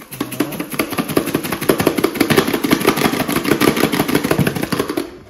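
A spoon stirred fast through minced-meat filling in a pot, giving a rapid, even clatter for about five seconds.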